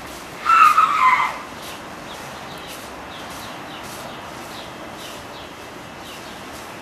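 A single high squeal lasting about a second, starting about half a second in and falling slightly in pitch, over a steady background hiss.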